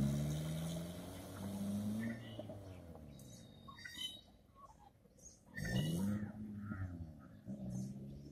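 Hyundai i10 hatchback's engine revving as the car pulls away, fading with distance, then revving up again about five and a half seconds in. Birds chirp faintly in between.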